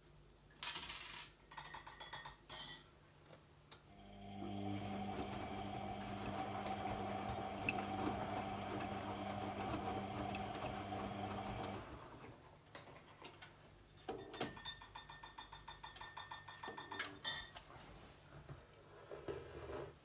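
AEG Lavamat 50435 front-loading washing machine turning its wet load during the soak: the drum motor runs with a steady hum for about eight seconds, stops, and before and after it there are short bursts of splashing and clinking as the wet clothes and water move in the drum.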